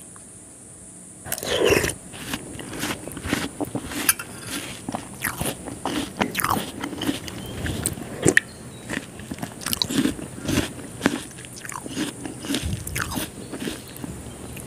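Close-miked chewing and mouth smacking of spoonfuls of fruit custard (chopped fruit in a milky custard), in irregular short clicks and smacks that start about a second in.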